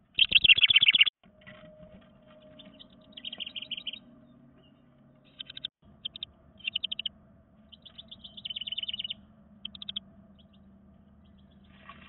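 House wren singing: a loud, fast bubbling trill in the first second, then a run of shorter rapid chattering phrases, one every second or so.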